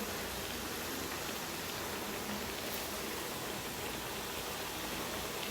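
Falafel patties deep-frying in hot oil: a steady, even sizzle.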